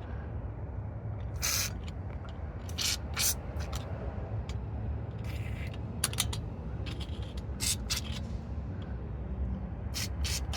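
Aerosol can of PB Blaster penetrating oil sprayed in a series of short hissing bursts onto rusted exhaust flange bolts, soaking them to free them up.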